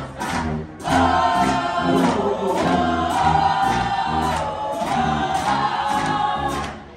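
High school marching band playing: drums keep a steady beat, and about a second in the horns and sousaphones come in with loud held notes over the drums, fading near the end.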